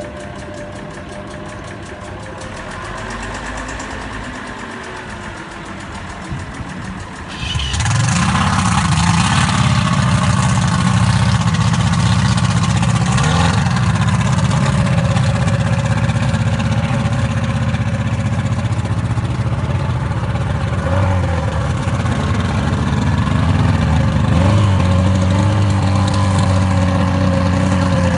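An engine that is quieter at first, then starts or opens up suddenly about seven seconds in and runs loudly and steadily, with a couple of brief revs.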